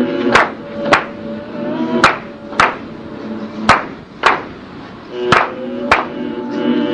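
Music: sharp drum strokes in pairs, a new pair about every second and a half, over held low notes.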